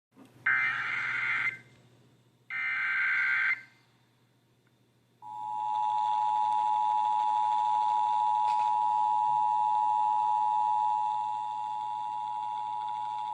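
Emergency Alert System broadcast of a severe thunderstorm warning. It opens with two short, roughly one-second bursts of warbling SAME header data tones. About five seconds in, the steady two-tone EAS attention signal starts and holds for about eight seconds.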